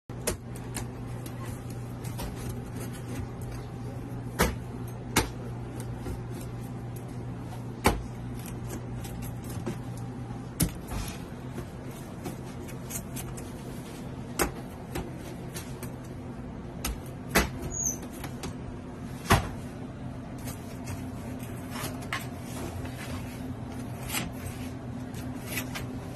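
Rolling pizza cutter knocking and clacking against metal pans and a steel counter while pizzas are sliced: sharp, irregular knocks, about a dozen or more, over a steady low machine hum.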